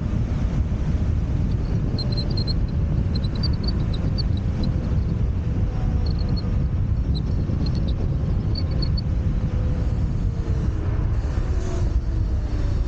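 Steady wind rush and road rumble from riding a Wolf Warrior 11+ electric scooter, with a faint whine that drifts slowly in pitch. Small clusters of faint high chirps come and go through the first two-thirds.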